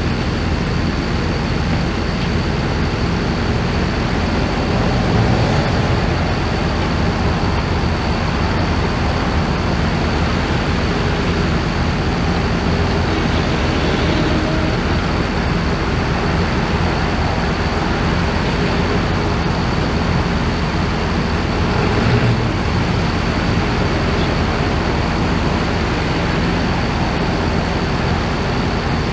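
Vehicle engine running steadily with no revving, along with a constant thin high-pitched whine.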